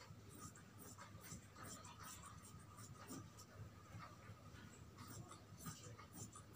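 Large tailor's scissors cutting through thin fabric: a faint, irregular run of short scratchy snips with the cloth rustling as it is held and turned.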